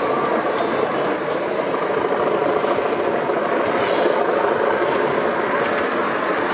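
O gauge model train, a diesel locomotive hauling a rake of coaches, running past along the track with a steady running noise.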